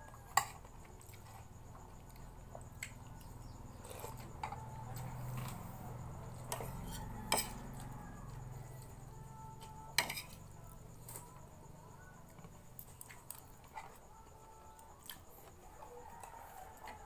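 Metal spoon clinking and scraping on a plate during eating: three sharp clinks stand out, just after the start, about seven seconds in and about ten seconds in, with quieter taps between.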